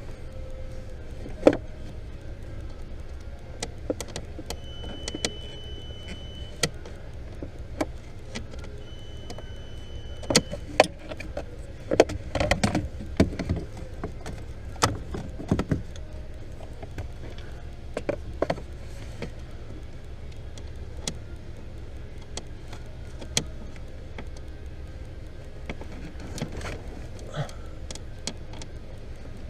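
Scattered, irregular clicks and knocks over a steady low hum, busiest between about ten and sixteen seconds in, with two short high beeps about five and nine seconds in.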